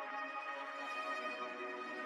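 Slow ambient background music of sustained, held tones.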